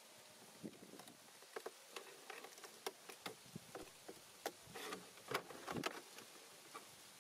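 Scissors cutting into a thin clear plastic water bottle: a run of irregular snips and plastic crackles, busiest and loudest toward the second half.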